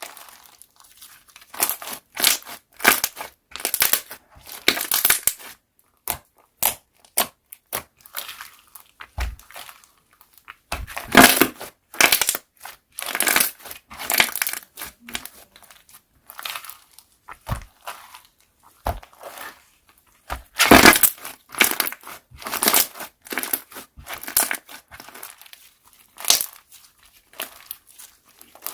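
Slime being squeezed, pressed and stretched by hand, giving irregular squishing, crackling and popping sounds, with louder bursts a little before the middle and about three quarters through.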